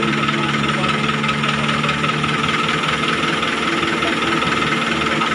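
Diesel engines of a Cat mini excavator and a concrete mixer truck running steadily: a low drone with a steady higher whine over it.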